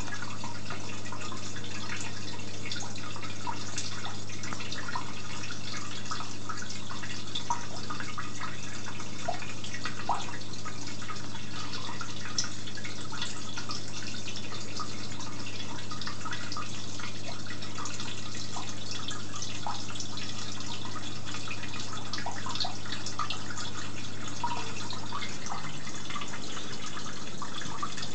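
Aquarium water bubbling and trickling, with many small irregular pops and drips, over a steady low hum that drops away near the end.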